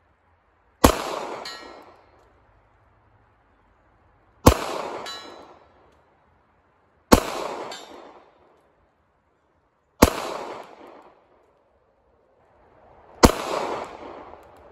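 Kel-Tec P32 .32 ACP pocket pistol fired five times in slow succession, about three seconds apart. Each sharp shot trails off in echo for about a second.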